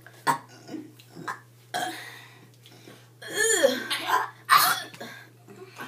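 Girls burping: several short throat sounds, then a drawn-out burp a little after three seconds in that falls steeply in pitch, and another loud, short one about a second later.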